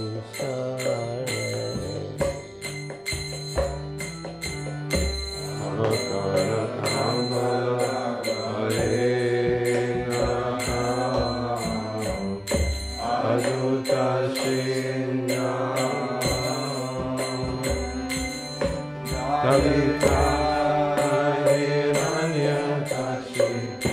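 Kirtan: a mantra chanted in a melody over steady held harmonium-like tones, with hand cymbals (karatalas) clinking in an even rhythm and low drum strokes.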